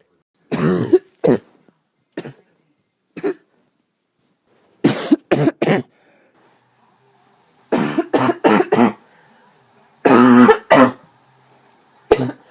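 A person coughing again and again in fits: single coughs, then runs of three or four close together, a few seconds apart. It is a persistent cough from an illness that nothing is easing.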